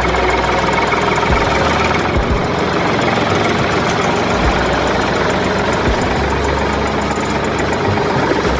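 A motor running steadily, with irregular low thuds.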